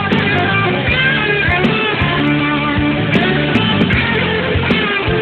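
Background music led by guitar, with plucked and strummed notes changing steadily.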